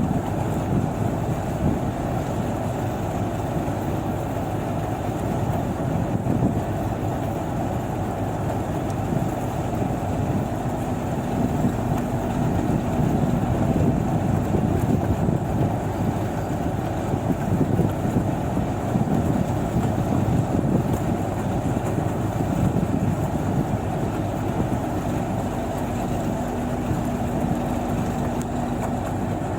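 Rice combine harvester running steadily while unloading grain. A faint low steady tone comes in twice, for a few seconds each time.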